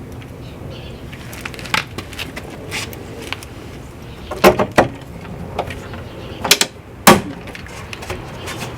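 Hand pop-rivet gun being squeezed to set pop rivets: a series of sharp clicks and snaps, the loudest about four and a half and seven seconds in, as the rivet mandrels are pulled and break off.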